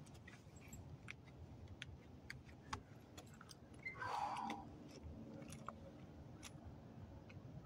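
Quiet outdoor range ambience with faint scattered ticks, and no gunshots. About four seconds in there is a brief rustle as hands brush the shooter's earmuffs and hoodie.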